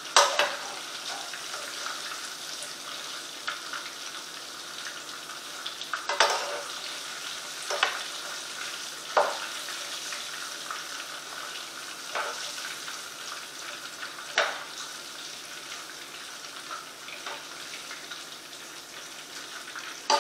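Hot coconut oil sizzling steadily in a frying pan where pork chops have been fried, as the chops are lifted out. A few short, louder crackles stand out, about six over the stretch.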